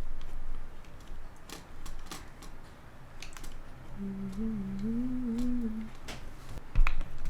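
Small clicks and scrapes of tools working inside a cassette player's mechanism while disintegrated rubber belt goop is cleaned out. Someone hums a short wavering tune about four seconds in, and there is a low thump near the end.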